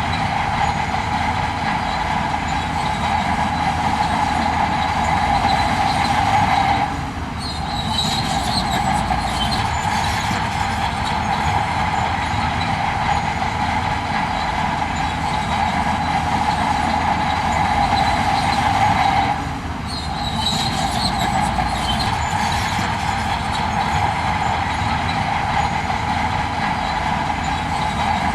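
Heavy earthmoving machinery running steadily under load, with a strong whine that cuts out briefly twice, about twelve seconds apart, each time followed by faint squeaks.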